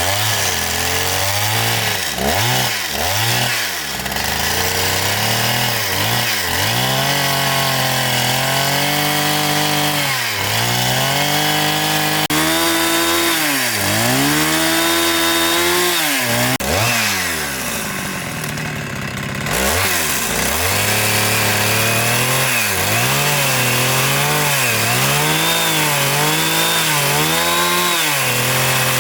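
Chainsaw running and cutting wood, its engine speed repeatedly sagging and climbing back as it bites into the cut. About two thirds through, the throttle eases off briefly, then the saw revs up and cuts on.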